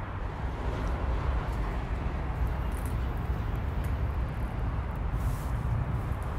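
Steady outdoor background noise: a low rumble with a hiss over it, and a few faint scuffs.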